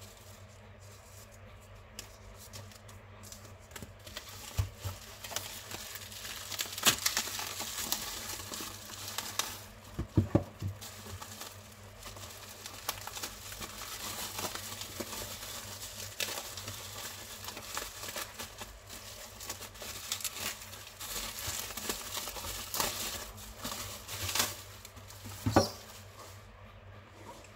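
Plastic bubble-wrap mailer and clear plastic wrapping crinkling and crackling as they are handled and peeled open, with a few knocks from cardboard boxes being set down on a wooden table.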